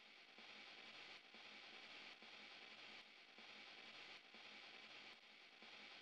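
Near silence: a faint steady hiss with very faint ticks about once a second.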